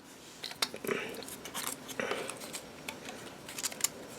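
Faint, scattered clicks and rustling as Zippo lighter cases, inserts and paper packaging are handled.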